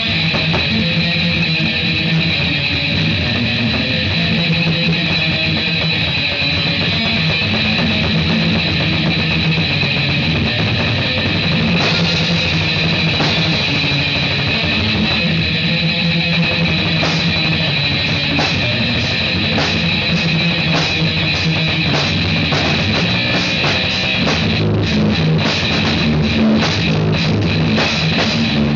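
Heavy rock played on distorted electric guitar and drum kit. Sharp drum and cymbal hits grow more frequent in the last part.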